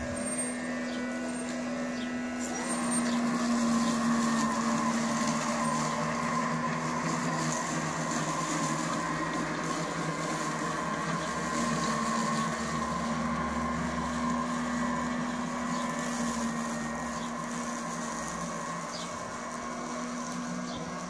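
Robomow RM510 robotic lawnmower mowing, its battery-powered electric motors giving a steady whirring hum. It grows louder for a few seconds about three seconds in and again around twelve seconds, as the mower moves about the lawn.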